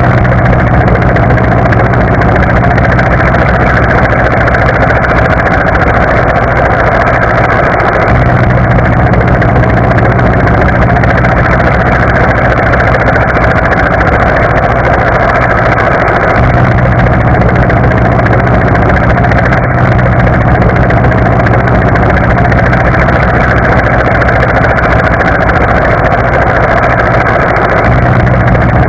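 Military combat helicopter running steadily, a continuous heavy drone of rotor and turbine engine.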